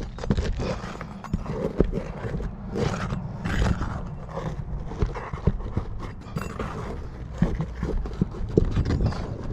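Steel shingle bar prying under asphalt roof shingles: irregular taps, clicks and scraping as the shingles' sealant strips are broken loose and the bar works at the nails.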